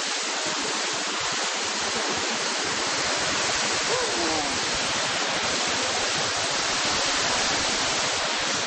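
Small woodland waterfall running high with a lot of water: a steady, even rush of falling water.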